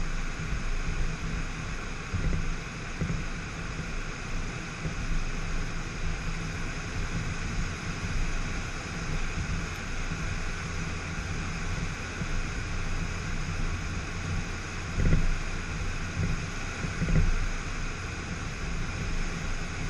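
Steady road and wind noise from a 2004 Jetta turbo driving along, a low rumble throughout, with two brief low thumps about 15 seconds in and again two seconds later.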